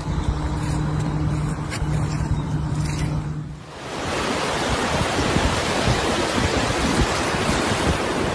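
A steady low hum over wind rumble, broken once about two seconds in. About four seconds in this gives way to loud wind buffeting the microphone over breaking surf on a beach.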